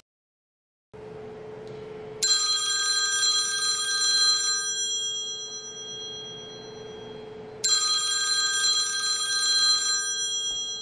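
iPhone ringing with a bell-like ringtone: two rings about five and a half seconds apart, each lasting about two and a half seconds.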